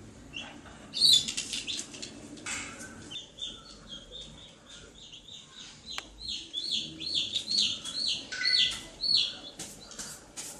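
Baby chicken peeping: a run of short, high peeps, each falling in pitch, about two a second, with a louder flurry of chirps about a second in.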